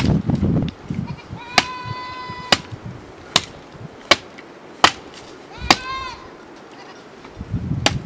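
Hand sickle chopping into a thin standing branch: six sharp strikes about one every 0.8 seconds, with brushwood rustling at the start and end. Twice a high, drawn-out call sounds between the strokes.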